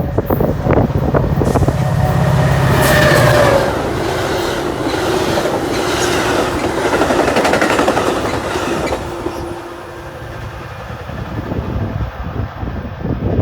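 A train passing close by. A steady low hum for the first few seconds gives way to rattling and the clickety-clack of wheels over the rails, which eases off about nine seconds in.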